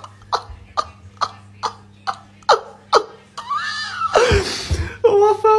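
A person's voice in short, regular bursts, about two to three a second, then a loud outburst about four seconds in, followed by a held, wavering cry.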